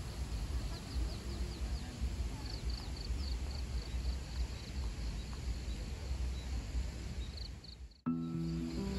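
Outdoor ambience: a steady low rumble with short, high chirps repeating at an even pace, from birds or insects. It fades out about eight seconds in, and music begins.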